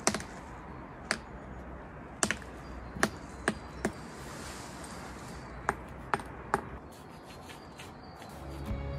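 About ten sharp, irregular taps and clicks over a faint steady background. Music fades in near the end.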